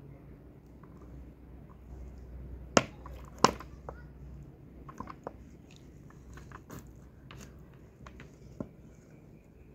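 Close handling noise: a few sharp clicks and light crackles, the two loudest about three seconds in, over a faint low steady hum.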